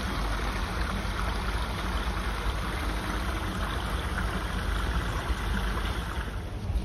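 Small garden stream running over rocks, a steady rush of water with a low rumble underneath; it drops away just before the end.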